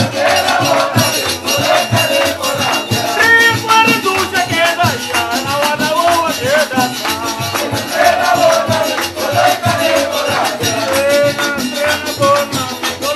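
Live acoustic Latin folk music: small guitars strummed, a hand drum, and a shaker keeping a steady rhythm, with a man singing over it.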